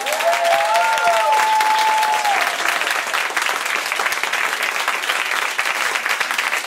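Audience applauding, with a few voices whooping and cheering over the clapping in the first two seconds or so and once more near the end.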